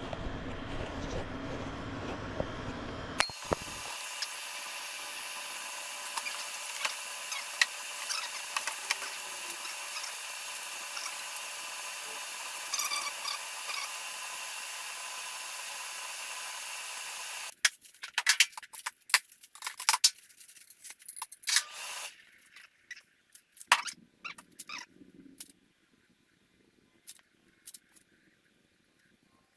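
Metal parts and hand tools clicking and clinking in a string of short, sharp knocks while a canopy frame is assembled. For much of the time they sit over a steady hiss, and near the end they come one at a time against near quiet.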